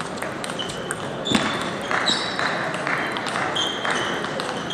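Table tennis balls clicking off bats and tables in a busy hall with several matches going, with short high squeaks and a murmur of voices behind.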